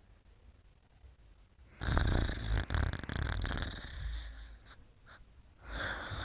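Snoring: one long, loud snore starts about two seconds in and fades away, and a second begins near the end.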